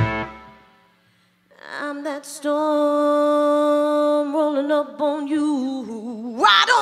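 Live blues-rock band stopping: its last hit rings out and dies away, and after a second of near silence a female singer carries on unaccompanied, holding one long note, then wavering and sliding down in a run before a rising slide near the end.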